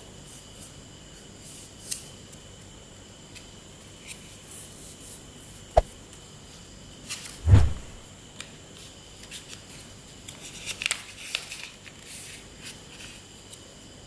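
A sheet of paper being folded and creased by hand on a table: scattered short crackles and rustles of the paper, a sharp tap about six seconds in and a louder dull thump a second and a half later, then a cluster of crinkles near eleven seconds.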